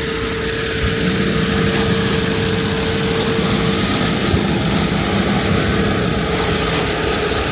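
Combine harvester engine running steadily as the machine cuts through the rice paddy, with a steady whine that fades out about halfway through.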